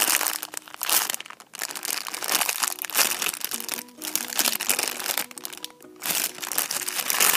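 Thin clear plastic bags crinkling in repeated bursts as squishy toys still sealed in them are handled and squeezed, with background music underneath.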